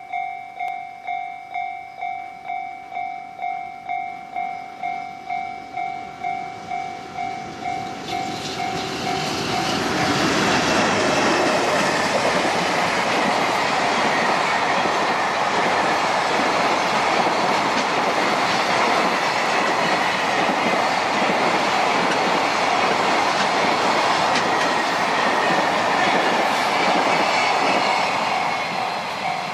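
A level-crossing alarm dings steadily about twice a second. About eight to ten seconds in, a freight train hauled by an EH500 electric locomotive passes, its wheels rumbling and clacking over the rails and drowning out the alarm, which can be heard again near the end.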